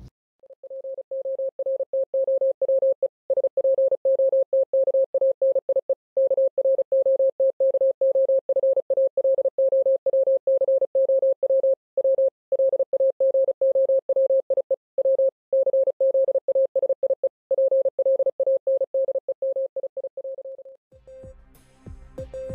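Morse code: a single mid-pitched beep keyed quickly on and off in dots and dashes, with brief pauses between words. It fades in just after the start and fades out about a second before the end.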